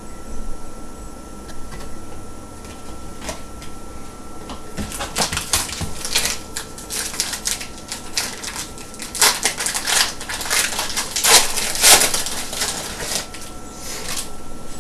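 Crinkling and crackling of trading-card pack wrappers as hockey card packs are opened and handled, sparse at first, then a dense run of sharp crackles through the middle.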